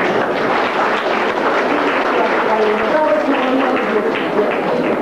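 Audience applauding steadily, with a few voices mixed in.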